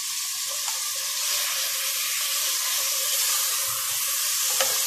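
Beef pieces sizzling as they fry in hot oil in a pressure cooker, stirred with a spatula. The sizzle is a steady hiss.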